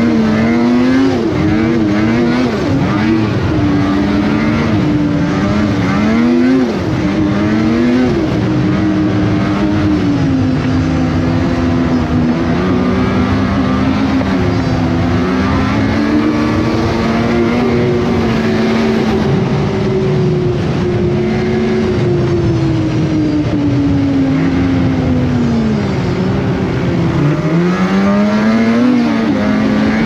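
Snowmobile engine running under way, its pitch rising and falling with the throttle. It goes up and down several times in the first few seconds, holds fairly steady through the middle, eases off and then climbs again near the end.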